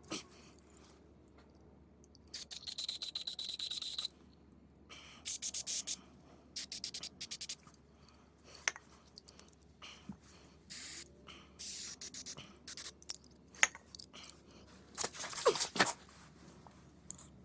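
Aerosol carburetor cleaner sprayed in several short hissing bursts onto a disassembled small-engine carburetor. A few sharp clicks come between the bursts.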